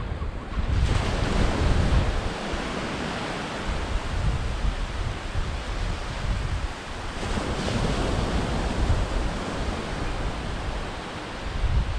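Surf washing onto the shore, with wind gusting on the microphone as an uneven low rumble. The rush swells about a second in and again around seven seconds.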